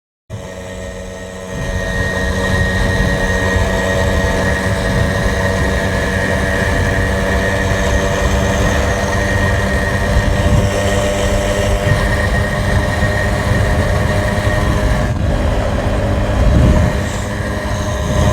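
Two-stroke moped engine running steadily at high revs at full cruising speed, with wind rushing over the microphone.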